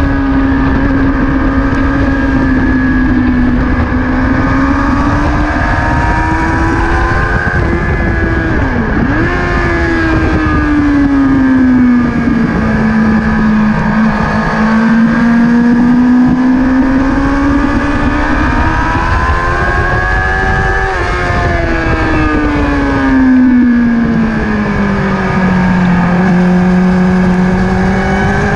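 Sport motorcycle engine under hard track riding, its note climbing and falling as the rider opens and closes the throttle through the corners, with a quick dip about nine seconds in. Heavy wind noise on the microphone runs underneath.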